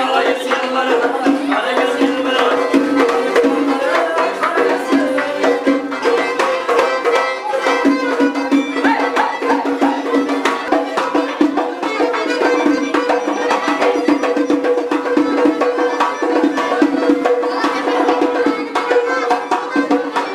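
Traditional dance music with a fast, driving hand-drum rhythm over a steady held drone.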